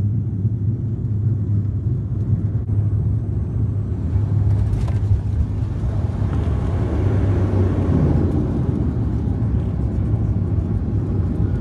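Steady low drone of a twin turboprop airliner's engines and propellers heard inside the cabin during landing, on final approach and then rolling along the runway. It grows a little louder and rougher from about six seconds in.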